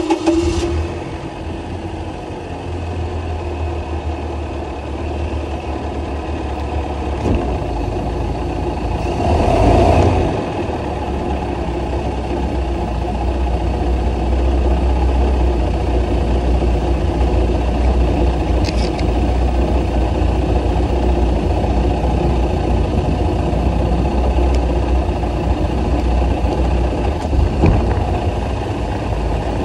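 Boat motor running after a restart, with a steady low rumble and a brief louder surge about nine to ten seconds in. The owner believes it has blown a head gasket, with water coming out of a cylinder.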